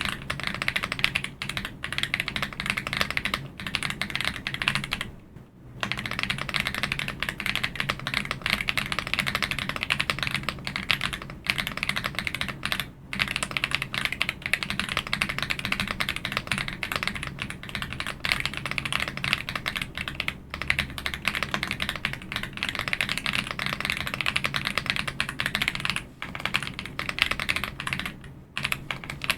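Typing on an AULA F75 mechanical keyboard with LEOBOG Reaper switches: a fast, continuous stream of keystroke clacks, broken by a few short pauses.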